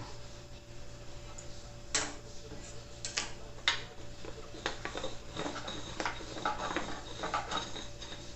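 Kitchen utensils and dishes clinking: a few separate clinks, then a busier run of clatter in the second half, over a faint steady hum.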